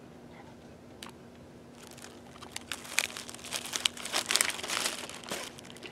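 Plastic wrapping crinkling and rustling as items are handled, starting about two seconds in and busiest near the end, with many small sharp crackles.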